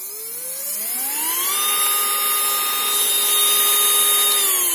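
Small DC motor driven by a PWM speed controller, spinning up with a whine that rises in pitch for about a second and a half as the controller soft-starts it. It then runs at steady full speed, and near the end the pitch starts to fall as the motor is slowly ramped down to a stop.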